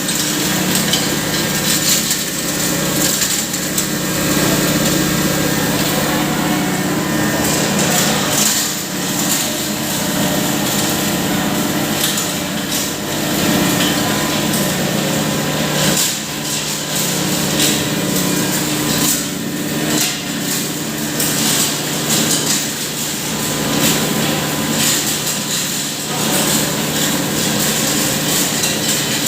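Impact pulverizer (hammer mill) running steadily while grinding dried turmeric. It gives a constant motor hum under a dense, gritty rattle.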